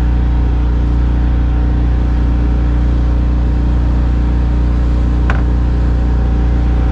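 Petrol outboard motor running steadily, pushing the sailboat along under power in a calm. A single short click sounds about five seconds in.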